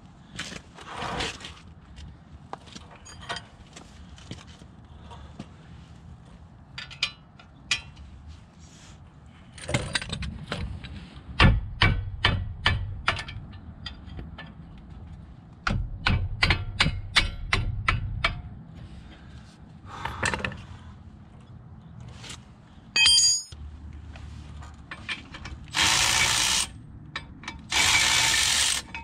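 Metal tools and brake parts clicking and clanking during a front brake rotor and pad replacement, with runs of quick ratcheting clicks. A short squeak comes past the middle, and near the end there are two bursts of hiss, each about a second long.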